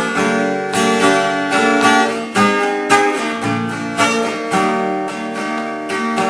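Acoustic guitar strummed in a steady rhythm, an instrumental break in a country song.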